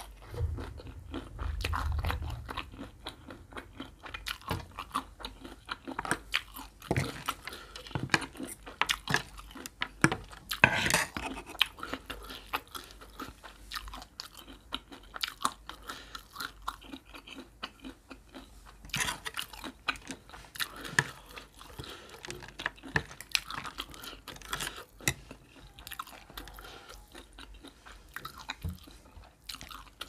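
Close-miked chewing of a spicy Thai salad of horseshoe crab eggs with shredded raw vegetables and peanuts: many short, crisp crunches and wet mouth sounds throughout. A low rumble sounds in the first two seconds.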